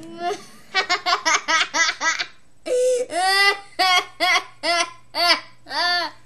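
A young girl's put-on evil little laugh: a fast run of short 'ha' bursts, then several longer, high laughs that each rise and fall in pitch.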